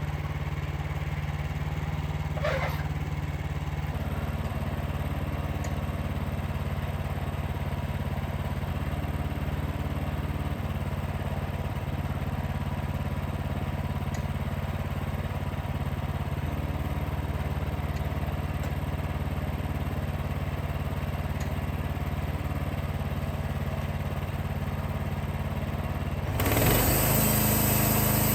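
Portable band sawmill's 14 HP engine running steadily. About 26 seconds in it suddenly gets louder and a bright hiss joins it.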